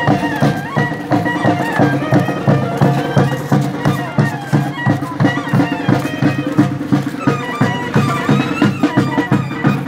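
Traditional folk music: a reedy wind melody over a steady drone, with a low drum beat about three times a second.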